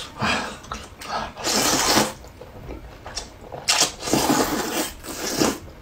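A person slurping noodles from a bowl: a series of noisy, wet slurps, the longest and loudest about one and a half seconds in, with a few more near the end.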